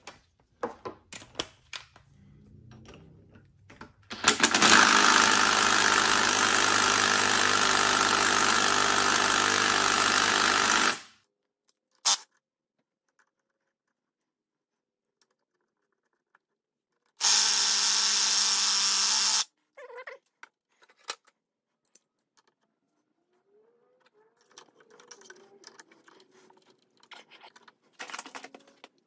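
Power tool running in two bursts, about seven seconds and then about two, driving a rotor puller to pull the flywheel rotor off a Honda ATC90 engine. Small clicks and handling clatter come between and around the runs.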